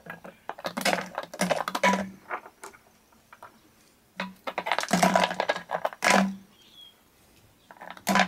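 Small rocks dropped into a plastic bottle, clattering and rattling against the plastic in several separate bursts of quick clicks.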